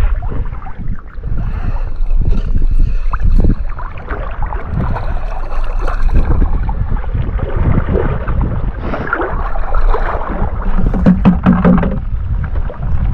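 Wind buffeting the microphone over lapping, sloshing river water. A cluster of short splashes comes about nine to twelve seconds in.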